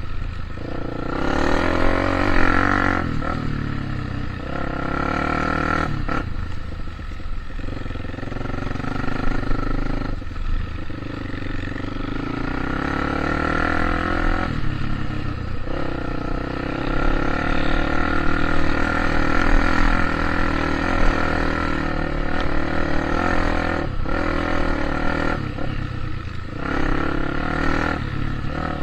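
A vehicle's engine running under load, its pitch rising and falling every few seconds as it revs and eases off.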